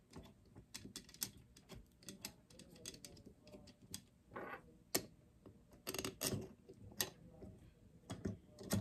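Irregular light metal clicks and taps as fuel-bowl screws are picked up off a wooden table and threaded by hand into the secondary fuel bowl of a Holley 4150 carburetor.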